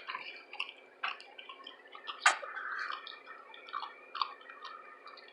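Close-miked chewing of food: irregular wet mouth clicks and smacks, with one louder click a little over two seconds in.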